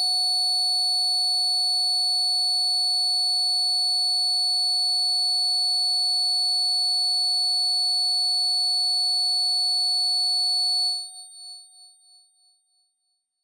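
Electronic music ending on one held synthesizer tone, bright and steady, that fades out in wavering pulses about eleven seconds in.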